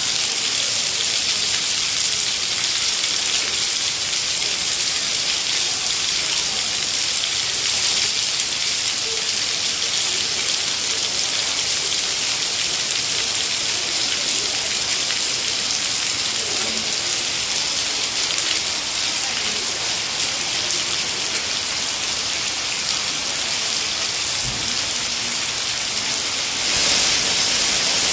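Heavy rain falling steadily on wet paving and pooled water: a dense, even hiss of drops splashing. It gets a little louder near the end.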